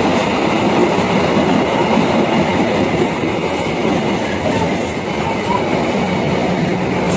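Train passing by at close range: a loud, steady rush of noise from the cars going by.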